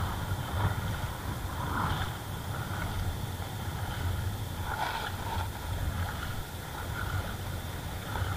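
Water sloshing around legs wading through shallow seawater, over a low rumble of wind on the microphone, with a couple of brief swishes of water.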